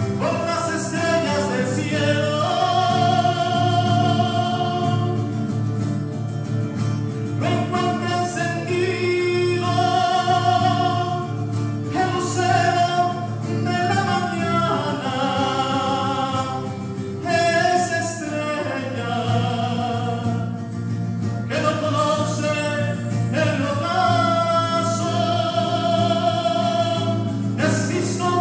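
Voices singing a slow religious hymn with long held notes over a steady low accompaniment.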